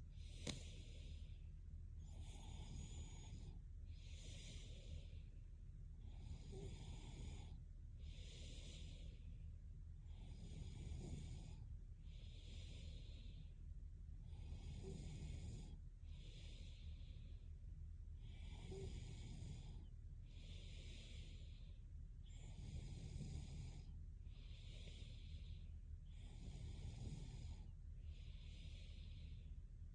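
A sleeping woman's faint snoring breaths, coming evenly about every two seconds. A brief click sounds about half a second in.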